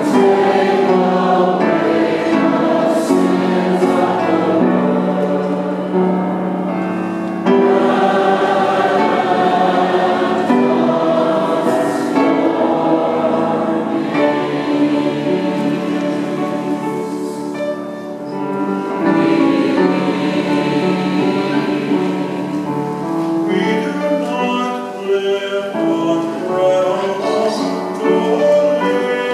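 Small mixed vocal ensemble of women and men singing a worship song together at microphones, with held notes.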